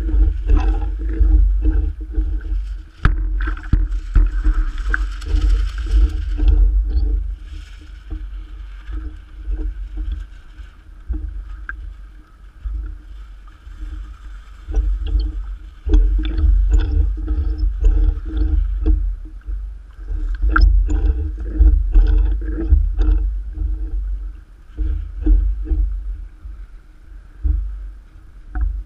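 Choppy water slapping and gurgling against a radio-controlled model sailboat's hull and the waterproof camera riding at the surface, over a heavy low rumble of wind and water on the housing. It comes in surges, loud for several seconds at a time, then quieter.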